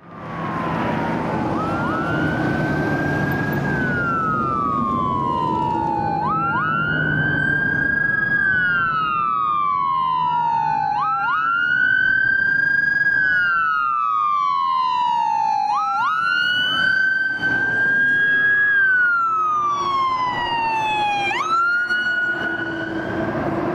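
Electronic wail sirens of an ambulance and fire department rescue vehicles driving past code 3. Two sirens run slightly out of step, each rising and falling slowly about every five seconds, with engine rumble underneath in the first few seconds.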